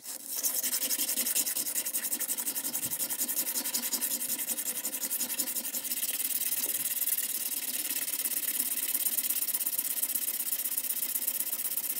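Stainless steel nut ring rubbed quickly back and forth on a sheet of sandpaper laid flat: a steady, rapid scraping that starts suddenly.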